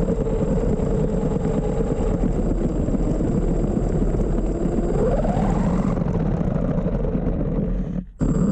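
A 3D-printed RC car's 1000 kV brushless electric motors whining as it drives, over a steady hiss. The whine sinks a little, then rises steeply about five seconds in as the car speeds up. The sound cuts out briefly just before the end.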